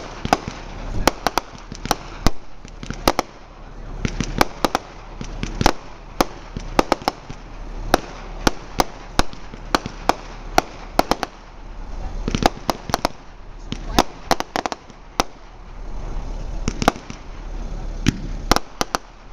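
Aerial fireworks display: dozens of sharp bangs and pops in an irregular, rapid string, over a steady low rumble.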